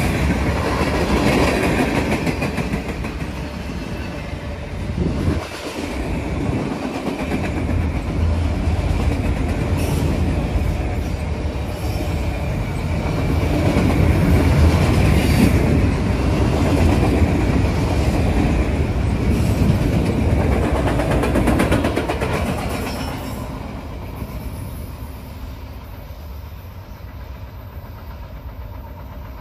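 Freight cars of a long train rolling past at speed, a loud steady noise of wheels on rail. It dies away about three-quarters of the way through as the end of the train goes by.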